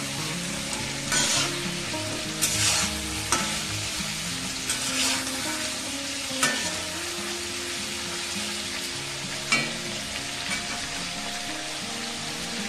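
Marinated chicken pieces sizzling steadily as they fry in hot oil in an iron karahi on a high flame. The chicken is being stirred, with a few short, sharp scrapes and knocks against the pan every second or two.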